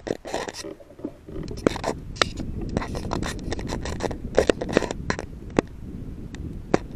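Dry grass and brush scraping and rustling against a rifle-mounted night-vision scope as it moves through vegetation, with irregular sharp clicks and snaps.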